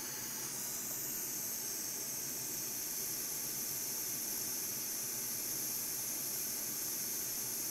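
Steady, even high-pitched hiss with no distinct events.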